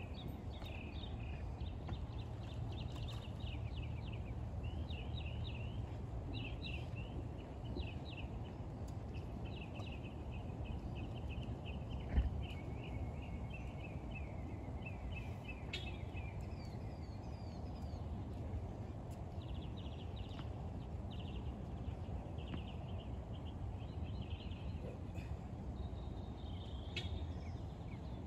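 Small birds chirping in quick repeated phrases over a steady low outdoor rumble, with one sharp knock about twelve seconds in.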